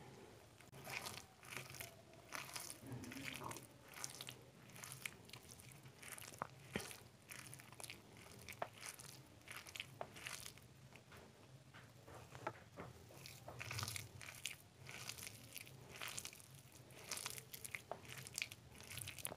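Fingers kneading and mixing wet, water-soaked rice with mashed potato and omelette on a steel plate: soft, irregular squelching and crackling, with a few sharp clicks against the plate.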